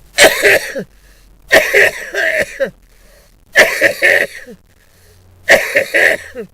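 A man coughing in four harsh fits about two seconds apart, each a sharp first cough followed by shorter ones. It is a cough reflex set off by a tickle in the throat that felt like a swallowed midge.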